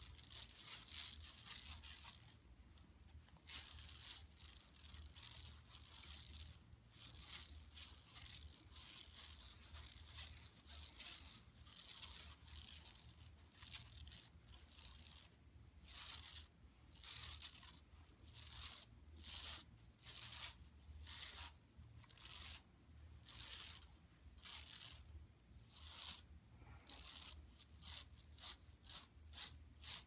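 Long fingernails scratching a printed shopping bag in dry, scratchy strokes. The strokes run almost continuously at first, then come as separate strokes about two a second in the second half, quickening near the end.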